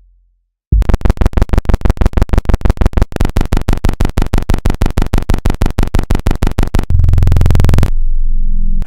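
Synthesized electronic sound effect: a buzzy pitched tone pulsing rapidly, about nine pulses a second, for about six seconds, then changing to a steady low buzz for about a second that cuts off suddenly.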